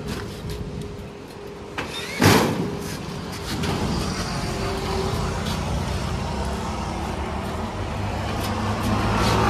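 A motor vehicle's engine running nearby, a steady low rumble that grows louder near the end. One loud sharp knock a little over two seconds in.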